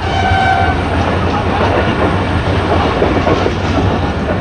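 A train horn sounds a short, steady blast that cuts off under a second in, over the loud, steady running noise of a passenger train at speed on the rails.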